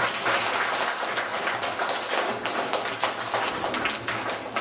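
Audience of schoolchildren applauding: many hands clapping in a dense, irregular patter.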